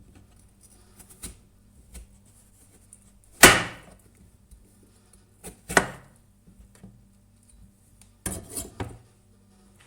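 A knife cutting through a persimmon and knocking on a cutting board, one slow cut at a time. The loudest chops come about three and a half and six seconds in, with a quick double cut near the end.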